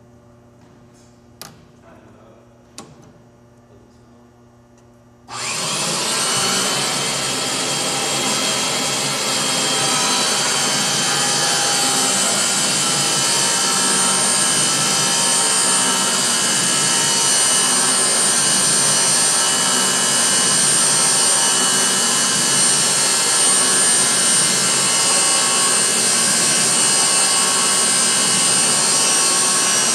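Two light clicks, then about five seconds in a power pipe threading machine starts and runs steadily: a motor hum under a loud, even hiss as the die head cuts threads on steel pipe.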